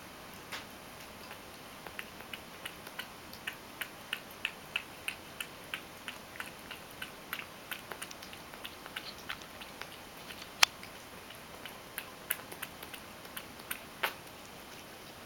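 Ragdoll cat lapping milk from a stainless steel bowl: a run of short wet clicks about three a second, thinning out later, with one much sharper click a little past ten seconds in.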